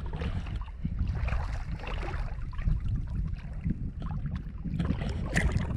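Feet wading and splashing through shallow tidal water, sloshing irregularly, over a steady low wind rumble on the microphone.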